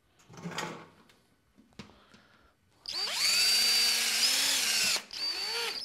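Power drill driving a self-tapping screw through the overlapped seam of an aluminium skylight tube: the motor spins up about three seconds in and whines for about two seconds, then runs again briefly near the end.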